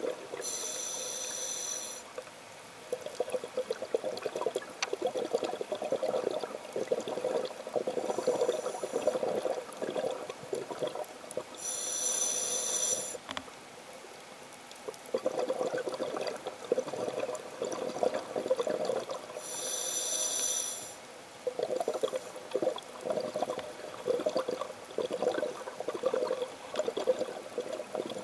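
Scuba regulator breathing heard underwater: three hissing inhalations, each followed by a long gurgling rush of exhaust bubbles.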